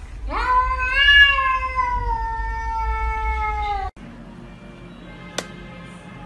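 A cat's long, drawn-out yowl that rises quickly and is held for about three and a half seconds, sliding slowly lower before it cuts off abruptly. After it, a single faint click near the end.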